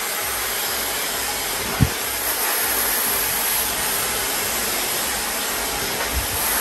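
Handheld hair dryer blowing steadily while a section of hair is dried over a round brush. A brief low thump sounds about two seconds in.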